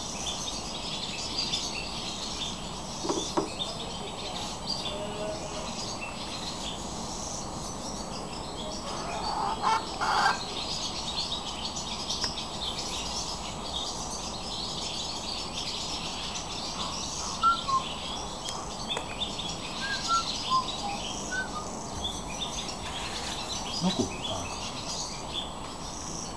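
Many small birds chirping continuously in the background, with a faint steady high tone under them. A brief louder sound about ten seconds in and a few short soft calls later stand out from the chirping.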